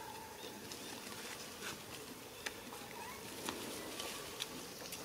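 Macaques on a tree trunk: a few short, soft squeaks among scattered light clicks and rustles.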